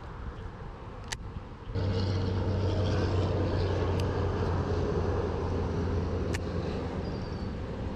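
A steady, low mechanical drone starts abruptly about two seconds in and holds, with a few sharp clicks over it.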